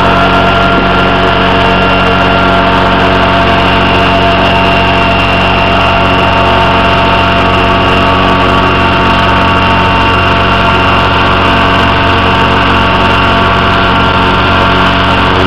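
Radio-controlled scale helicopter running at a steady speed, its motor and rotors making an even, unchanging whine with several steady tones as it lifts off and hovers just above the ground.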